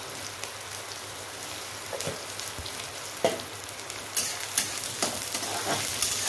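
Sliced onions and green chilli sizzling as they fry in an aluminium wok, with a metal spatula scraping and knocking against the pan from about two seconds in, more often near the end.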